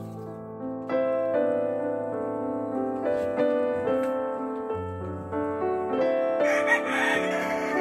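Background piano music, a steady run of single notes. About six and a half seconds in, a short, rough, noisy sound lasting about a second rises under it.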